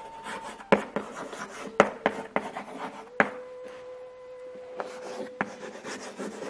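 Chalk writing on a blackboard: scratchy strokes broken by irregular sharp taps as the chalk strikes the board.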